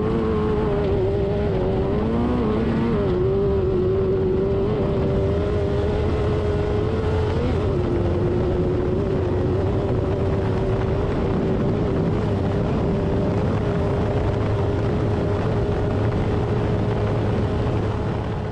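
Off-road race car engine running at high, nearly steady revs. Its pitch wavers slightly in the first few seconds and dips briefly about eight seconds in.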